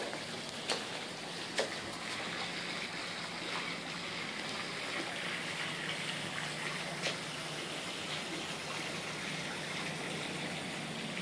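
Steady hiss of falling or running water, even and unbroken, with a faint low hum beneath and a few soft clicks.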